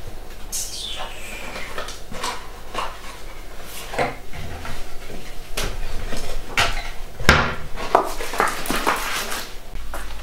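Kitchen clatter: dishes and cutlery knocked and set down on a counter and a wall cupboard being opened, a string of separate clinks and knocks.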